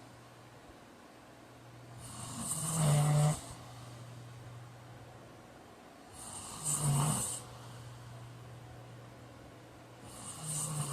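A man snoring in deep sleep: three loud snores on the in-breath, about every four seconds, the last one near the end.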